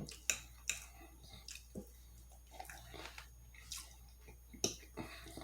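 A person chewing food close to the microphone, with irregular short mouth clicks and smacks.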